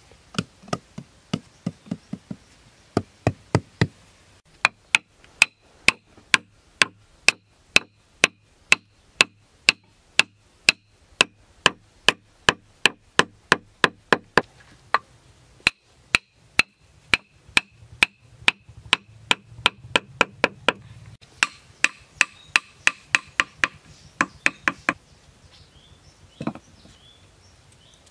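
Bamboo poles being knocked into place with a hand-held piece of wood: steady, sharp wooden knocks, about two to three a second, with a few short pauses.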